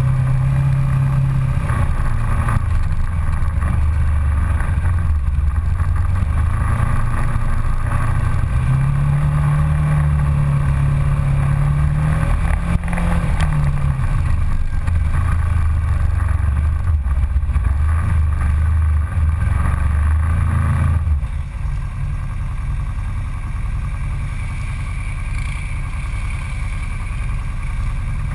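Polaris Ranger side-by-side's engine running as it drives a dirt trail, its pitch rising and falling with the throttle. About twenty seconds in, the engine note drops lower and quieter as the vehicle eases off.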